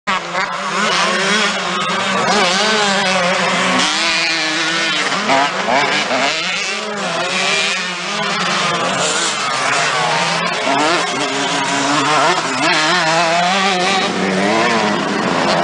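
Several motocross bikes racing, their engines revving up and down in overlapping rising and falling pitches.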